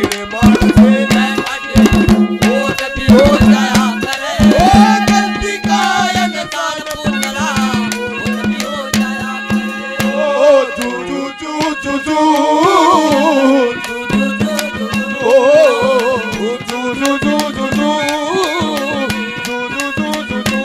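Haryanvi ragni accompaniment playing an instrumental passage: a clarinet carrying a wavering melody over a steady harmonium drone, with fast hand drumming on dholak and clay-pot drums. The drone drops out briefly about halfway through.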